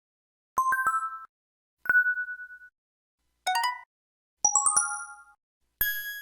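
Sky IM-U150L slide phone's built-in system tones, synthesised on its Yamaha MA-5 sound chip and played through its small speaker: five short electronic alert figures, one after another with gaps between. There are quick rising note runs, a single decaying ding near two seconds in, and a ringing chime near the end.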